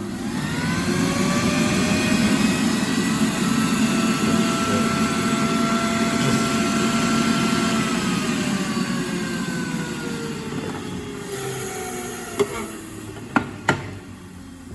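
Xiaomi Zhibai hair dryer switched on at speed 2: a rush of air with a motor whine that rises in pitch over the first two seconds and then holds steady. After about seven seconds the whine falls slowly as the motor spins down, and a few sharp clicks follow near the end.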